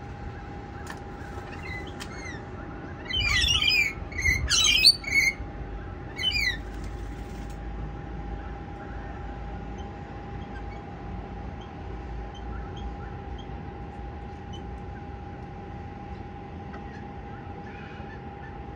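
Rainbow lorikeets screeching: a quick run of shrill calls about three seconds in, ending near five seconds, and one more short call a second later, then only a few faint chirps. A steady faint hum runs underneath.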